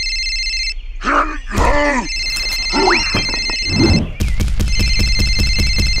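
Dubbed-in cartoon sound effects: a telephone ringing in repeated stretches, broken by short comic voice sounds, with a quick rising whistle about three seconds in and a fast pulsing under the ring near the end.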